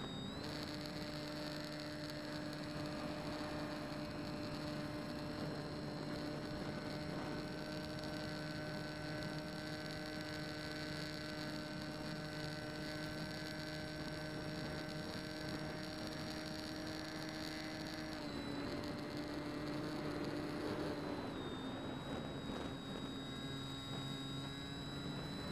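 Electric motor and propeller of a Bixler RC plane, picked up by the onboard camera: a steady humming whine that steps up in pitch right at the start, holds level for a long stretch, then drops in two steps about two-thirds of the way through as the throttle is eased back.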